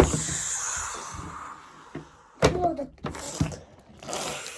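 A sudden crash noise, with a hiss that fades over about a second and a half, then a couple of shorter bursts: the pretend crash of the toy plane in play.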